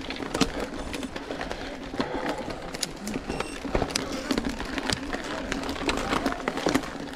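Mountain bike rattling over a rough woodland trail: a constant stream of irregular clicks and knocks from the bike.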